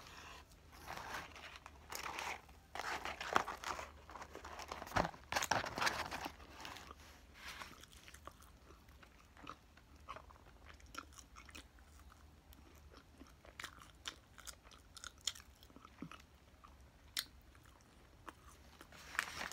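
Close-miked chewing and crunching of fast food, with sharp irregular bites and chews that are louder in the first several seconds and then give way to quieter small clicks and rustles.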